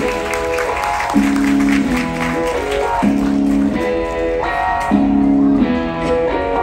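Instrumental background music, guitar-like plucked chords in a pattern that repeats about every two seconds.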